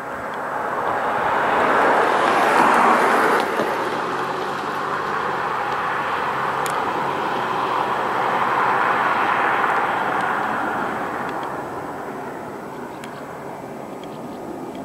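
Two F-35 fighter jets flying overhead in formation, their jet engine noise a loud rush that swells about two seconds in, eases, swells again around eight to nine seconds, then fades somewhat near the end.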